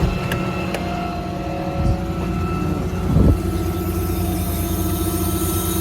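6.7 Cummins diesel engine running steadily, driving the truck's hydraulic air compressor. Two short clicks come in the first second and a low thump about three seconds in.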